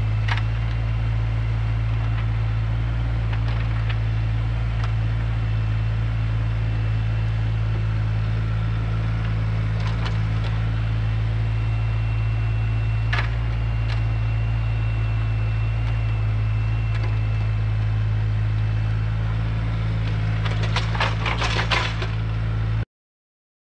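John Deere 35 compact excavator's diesel engine running steadily while the machine digs a trench, with a faint high whine in the middle and occasional sharp knocks of the bucket on rocks, several close together near the end. The sound cuts off suddenly just before the end.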